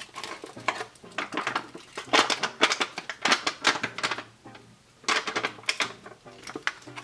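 Foil-laminate MRE retort pouch crinkling and crackling in the hands as it is squeezed to empty the chicken stew, a dense run of irregular crackles with short pauses.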